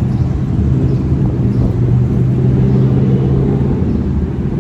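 Low rumble of road and engine noise inside a moving car, with a steady low hum through most of the stretch.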